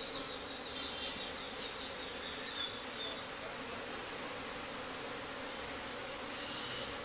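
Many honey bees buzzing in a steady, continuous hum around an opened hive.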